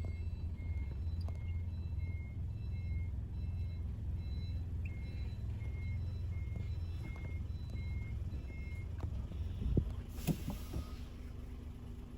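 Semi-trailer truck backing up: its reversing alarm beeps steadily, about three beeps every two seconds, over the low rumble of the diesel engine, then stops. Near the end comes a short burst of air hiss, as from the truck's air brakes being set after the back-in.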